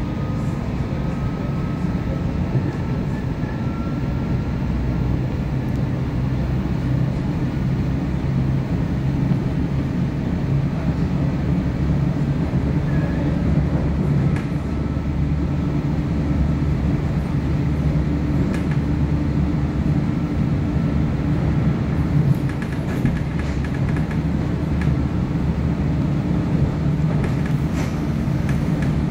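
Inside an Irish Rail 8520 class DART electric multiple unit running along the line: a steady low rumble from the wheels on the track, with a few faint clicks and rattles.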